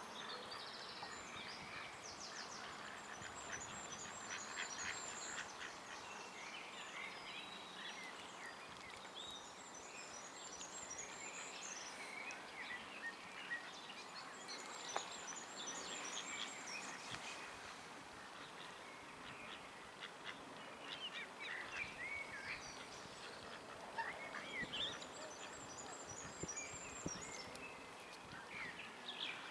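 Outdoor waterside bird sounds: scattered short duck calls and chirps over a steady background noise, with a high trilling songbird phrase that comes back every six or seven seconds.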